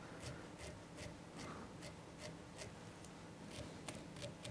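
Faint scratchy strokes of a dubbing brush raking through pearl dubbing on a fly in the vise, brushing the fibres out into shrimp legs, in quick irregular ticks about three or four a second.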